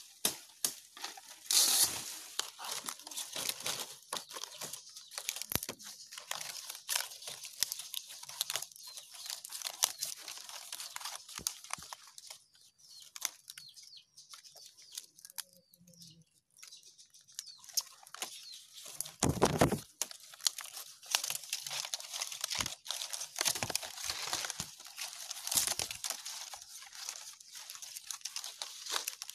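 Coconut palm leaflets rustling and crackling as they are handled, bent and woven by hand. The rustling eases off for a few seconds near the middle, and a louder thump comes about two-thirds of the way through.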